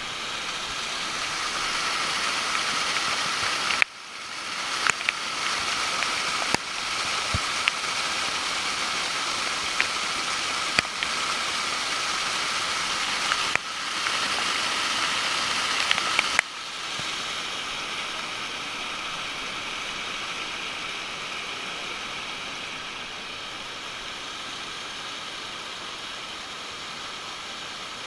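Waterfall water rushing and splashing: a steady noisy rush with a few sharp clicks. The sound changes abruptly a few times, about four, thirteen and sixteen seconds in.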